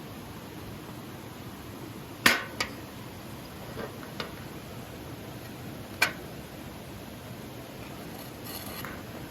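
A few sharp clicks and knocks, the loudest a little over two seconds in and another at about six seconds, over a steady background hiss.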